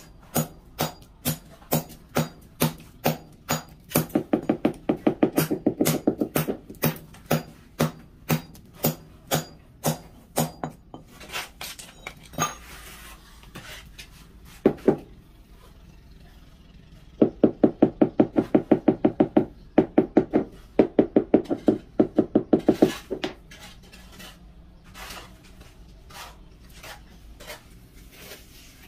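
Repeated knocking on freshly laid ceramic floor tiles, tapping them down to bed them into the mortar. The knocks come about two a second, with quicker runs of rapid taps about a third of the way in and again past the middle, then they thin out to a few scattered taps near the end.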